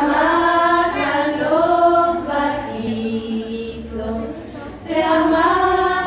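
Unaccompanied singing by voices in long, held notes that slide from pitch to pitch. It grows quieter about four seconds in, then swells back.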